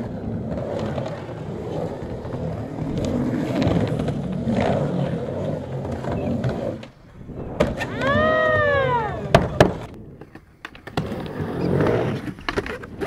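Skateboard wheels rolling and carving across a ramp with a steady rumble. About eight seconds in comes a high squeal that rises and then falls, followed by two sharp board clacks, and then the rolling picks up again.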